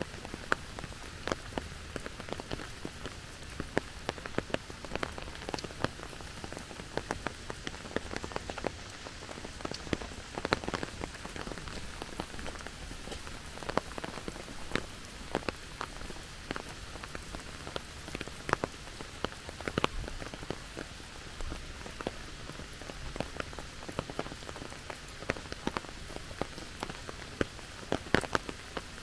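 Steady rain falling, a constant hiss with many close, sharp drops ticking at irregular moments.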